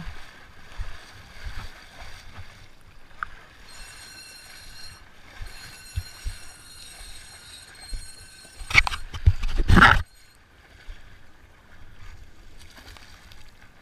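Water sloshing and gurgling close to the microphone, with rumbling knocks. About nine seconds in, a loud noisy rush lasts about a second, then the sound drops back.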